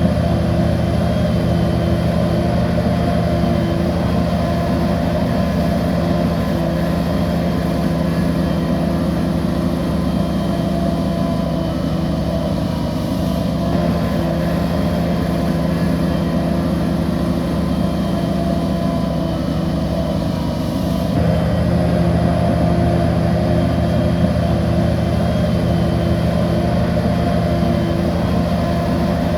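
Heavy diesel engine of a bulldozer running steadily under load; its note shifts slightly about halfway through and again about two-thirds through.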